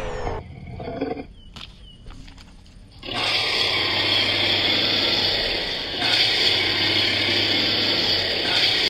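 Monster roar sound effect for a clay dinosaur: the tail of a screech fades at the start, then a long, steady, rasping roar begins about three seconds in and holds until the end.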